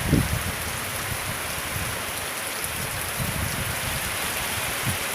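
Heavy rain pouring down steadily, an even hiss, with a brief low thump right at the start and a few softer low pulses later.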